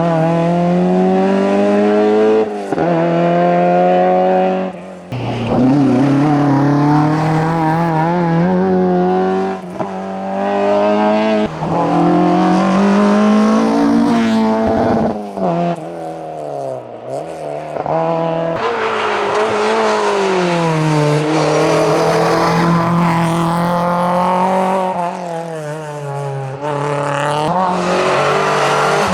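Racing car engine at full throttle on a hillclimb, its pitch climbing in each gear and dropping sharply at several gear changes. About two-thirds of the way through it falls low as the car lifts off for a corner, then it revs up through the gears again.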